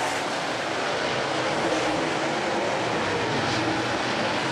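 A field of dirt modified race cars racing on a dirt oval, their engines blending into one steady drone.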